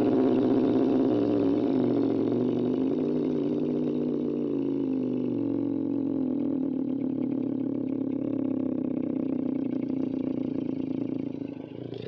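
Monster groan sound effect: a single drawn-out, low creature groan voiced by a person and processed, slowly wavering in pitch and fading away near the end.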